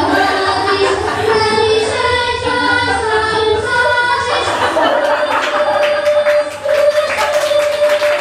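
Music with singing: a melody moving in distinct notes, then from about five seconds in one long held note over a busier backing.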